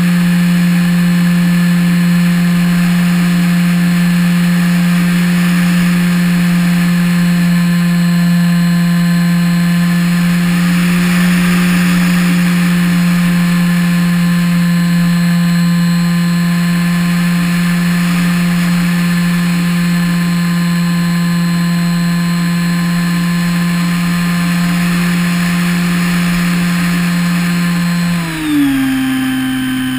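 Electric motor and propeller of an EasyStar 2 RC model plane, heard from an on-board camera: a steady whine over rushing air. About two seconds before the end the pitch drops sharply as the throttle is cut back.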